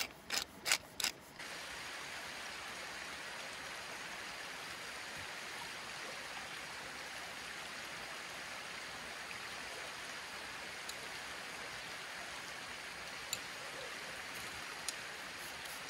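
A hand-twisted pepper mill grinding in about four quick turns over the first second or so, then the steady rush of a creek's running water.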